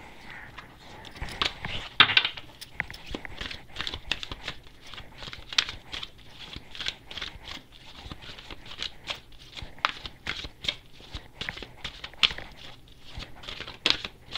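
Tarot deck being shuffled by hand: a long run of quick, papery card slaps and rustles, with a few louder strikes about two seconds in and again near the end.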